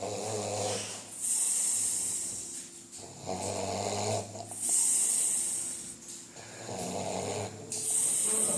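A person snoring in deep sleep: a low snore on each in-breath, each followed by a hissing out-breath, about three breaths, one every three seconds or so.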